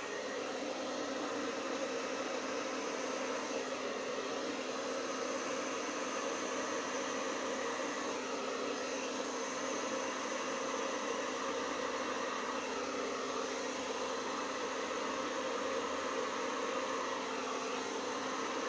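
Handheld hair dryer running steadily: a constant rush of air with a low motor hum, blowing wet pouring paint out across a canvas.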